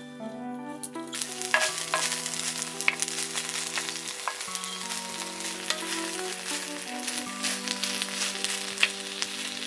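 Sliced beef, rice, corn and butter sizzling on a hot griddle plate, the sizzle starting about a second in, with small clicks and scrapes of a spatula as the food is stirred. Soft background music with held chords plays underneath.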